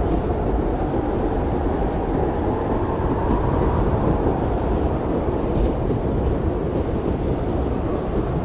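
Blizzard wind blowing steadily as a dense, low rush, with a faint higher tone that rises and falls around the middle.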